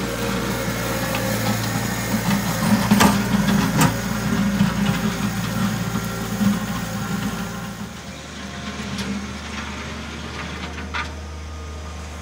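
John Deere 1023E compact tractor's three-cylinder diesel engine running steadily as it drags a box blade over loose dirt, with a couple of sharp knocks about three seconds in. The engine grows fainter after about eight seconds as the tractor moves off.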